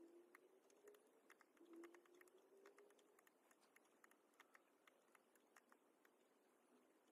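Near silence with faint, scattered laptop keyboard clicks. A faint low tone glides slightly upward twice in the first three seconds.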